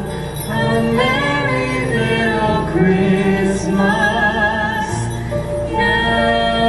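A song sung live into microphones by a man with women's voices, over backing music, with wavering sung notes. Near the end the music settles into a steady held chord.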